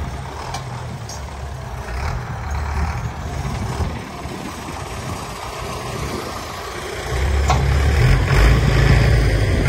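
Diesel farm tractors running under load as they tow a trolley loaded with sugarcane across a soft field, a steady low engine hum that gets louder about seven seconds in.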